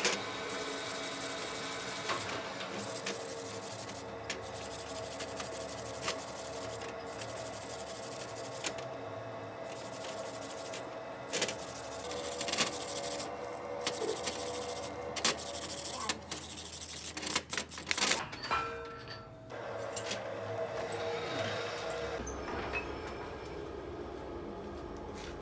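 A workshop machine running steadily, with scraping and scattered sharp clicks and knocks from metalwork. The running sound changes about three-quarters of the way through, and a low hum sets in near the end.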